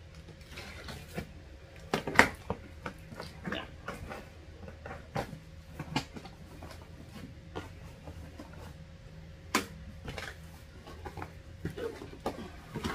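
Cardboard shipping box being cut open with a box cutter and its flaps pulled apart: scattered scrapes, taps and cardboard rustles, the loudest just after two seconds in.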